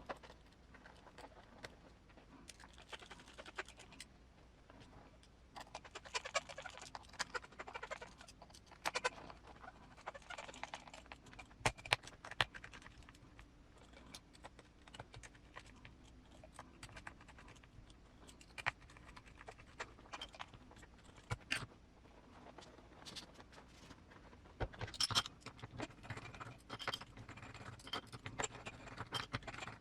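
Faint, irregular light clicks, taps and scratching of small plastic and metal parts being handled while assembling RC crawler beadlock wheels, in clusters with short lulls between.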